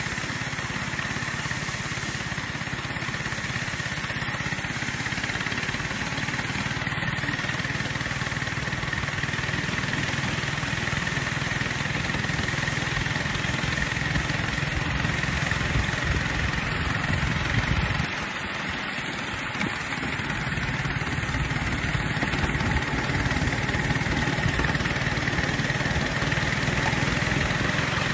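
Ride-on 5-inch gauge live-steam train running on the track, a steady mechanical rumble and hiss; the deep rumble drops away for a couple of seconds about two-thirds of the way through.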